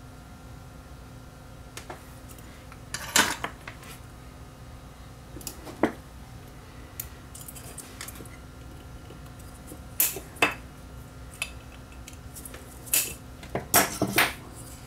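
Light metallic clicks and clatters of small tools and a circuit board being handled on a workbench during soldering: scattered single knocks, the loudest about three seconds in, and a quick cluster near the end.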